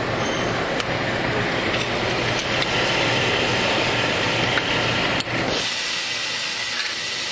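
Royal Master CNC centerless grinder and its robot parts loader running: a steady machine hum under a broad hiss, with a couple of sharp clicks. About five and a half seconds in, the low rumble drops away suddenly, leaving the hiss.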